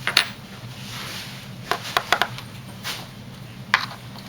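Scattered sharp clicks and taps of keys and a lock cylinder being handled, about half a dozen, irregularly spaced, over a steady low hum.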